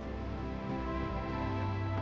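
Instrumental background music: held chords, with a low bass note coming in about one and a half seconds in.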